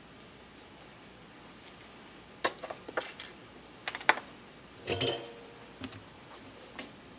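Scattered light clicks and taps of a soldering iron and solder being handled, with a louder rattling clunk about five seconds in.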